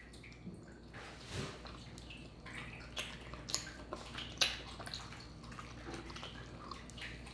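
A person chewing a mouthful of fried chicken sandwich close to the microphone, with soft, wet mouth clicks and smacks scattered throughout. The sharpest click comes about four seconds in.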